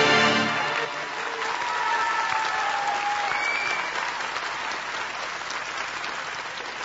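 Theatre audience applauding as the closing song's music ends in the first second, the clapping running on with a few faint voices calling out over it.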